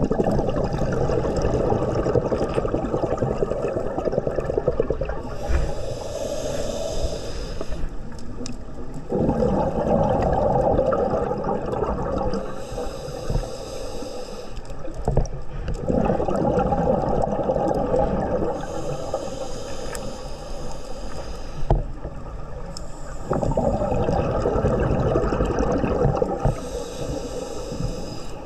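Scuba diver breathing through a regulator: a hissing inhale every six or seven seconds, each followed by the bubbling of the exhaled breath.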